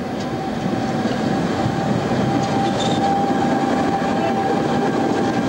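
Tatra KT4D articulated tram passing close by at a stop: a steady rumble of wheels rolling on the rails that grows louder as it goes by.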